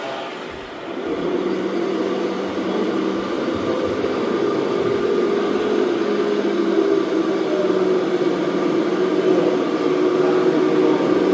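Radio-controlled model vehicle running: a steady whirring drone with a low hum, starting about a second in and slowly growing louder.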